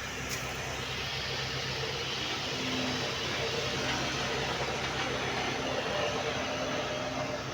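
An engine running steadily with a low hum and a hiss over it, growing a little louder in the middle; a short tick sounds just after the start.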